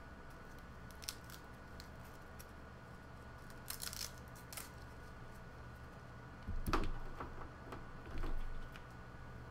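A cable and its plug being handled and untangled: scattered light clicks and rustles, with a louder soft thump and rustle about two thirds of the way through. A faint steady hum runs underneath.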